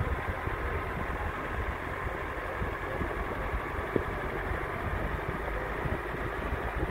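Vehicle engine running at low speed, heard from inside the cab as it creeps along in a traffic jam: a steady low rumble, with a small knock about four seconds in.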